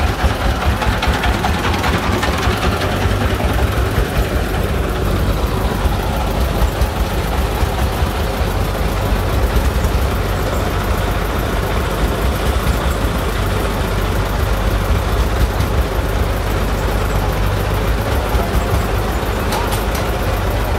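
Single-cylinder diesel engines of công nông farm trucks running steadily and loudly, with a constant low throb.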